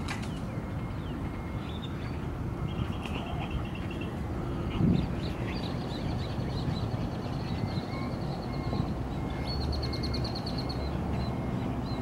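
Several birds calling: rapid high trills and short repeated notes, over a steady low rumble. There is a brief low thump about five seconds in.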